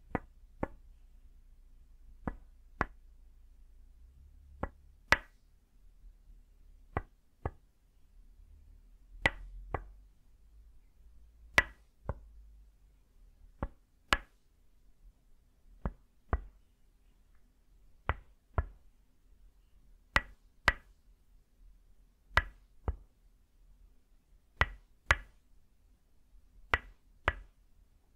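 Tok sen wooden mallet striking a wooden stake held against the shoulder, giving sharp hollow wooden knocks in pairs. Two strikes about half a second apart, repeated roughly every two seconds in a steady rhythm.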